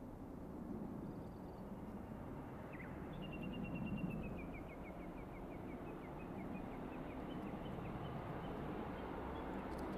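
A double-headed pair of JR Hokkaido DD51 diesel locomotives hauling a passenger train, giving a steady low engine rumble that swells a little partway through. Over it a bird sings a long run of quick notes that step down in pitch, starting about three seconds in.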